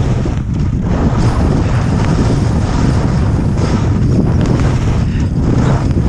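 Strong wind buffeting the microphone of an action camera carried by a skier on the move: a loud, continuous, gusting low rumble.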